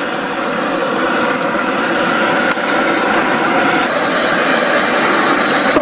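Large outdoor gas burner running steadily under a big pot of water and pork, a constant rushing sound.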